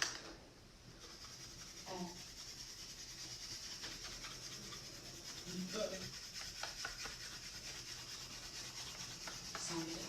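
Wood grain vinyl wrap being rubbed and smoothed onto a boat's switch panel: a steady rubbing hiss. There is a sharp click right at the start.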